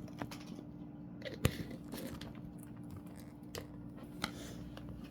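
Scattered light clicks and nibbling taps, the sharpest about one and a half seconds in: a green-cheeked conure biting and beaking at a pickle-jar toy.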